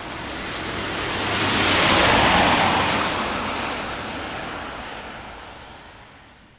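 A car passing by: tyre and engine noise swelling to a loud peak about two seconds in, then fading away.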